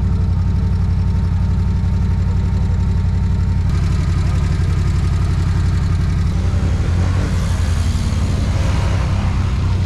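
ATV engine running at low, steady revs. A hiss over it grows stronger from about four seconds in.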